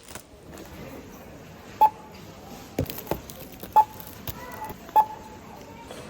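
Short electronic beeps from a device, three of them one to two seconds apart, with a couple of soft knocks between them.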